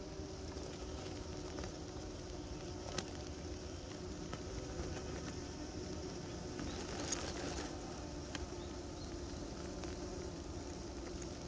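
Honeybees buzzing at a hive entrance: a steady low hum from many wings, with a couple of light ticks.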